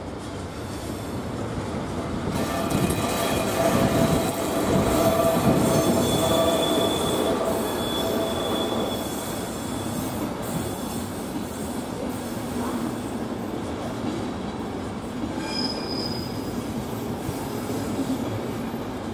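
Passenger coaches rolling slowly through station points on a curve, their wheels squealing in several high tones over a steady rumble and light clatter. The squeal is strongest in the first half and comes back briefly near the end.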